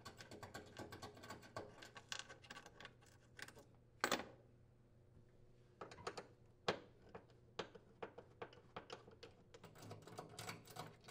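Microwave mounting bolt being unscrewed with a screwdriver through a wooden cabinet floor: faint quick clicks and ticks of metal on metal, with one sharper click about four seconds in and scattered clicks after.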